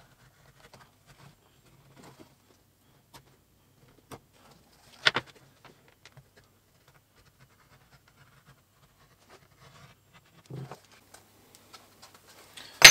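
Faint scratching and light taps of a small hand edging tool worked along the edge of a leather sheath, with a sharp click about five seconds in and a louder sharp click near the end.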